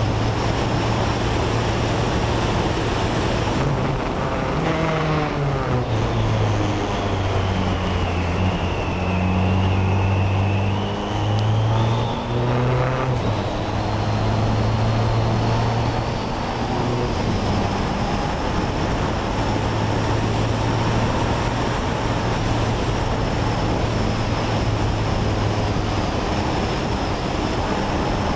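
BAC Mono single-seater's four-cylinder engine driven hard on a race track, heard onboard over wind rush. The engine note steps and glides through gear changes, with a run of downshifts about four to seven seconds in and more shifts around eleven to thirteen seconds.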